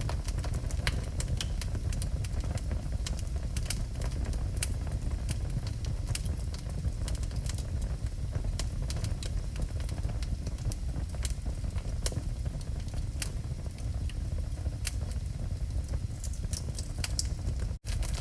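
Wood fire burning in a fireplace: frequent irregular crackles and pops over a steady low rumble, with a momentary dropout in the sound near the end.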